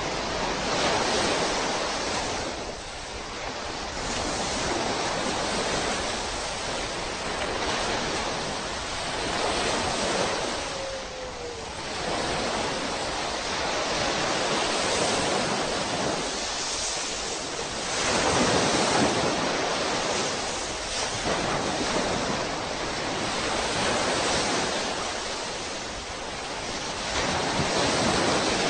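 Sea surf: waves washing in and drawing back, the noise swelling and ebbing every four to five seconds.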